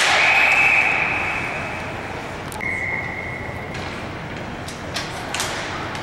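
Two long blasts on a referee's whistle over a steady haze of arena crowd noise. The first, higher blast lasts about two and a half seconds and the second, lower one about a second. A few sharp knocks follow near the end.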